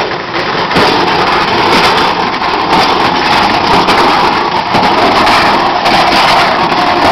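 Metal microwave oven being dragged along pavement: a loud, continuous grinding scrape.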